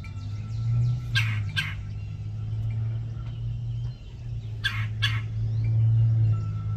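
Red-bellied woodpecker calling: two pairs of short, raspy calls about three and a half seconds apart, over a steady low hum.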